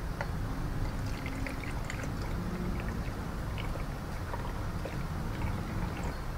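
Water poured from a plastic jug into the water tank of a Philips PerfectCare Aqua steam generator iron, with faint trickling and splashing, over a steady low hum.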